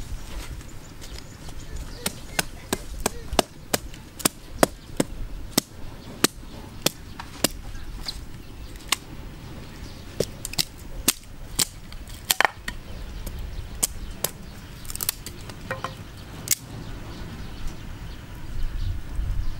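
Small hatchet chopping at a wooden stick: a run of sharp knocks, about two a second, thinning out to a few scattered strikes in the last few seconds.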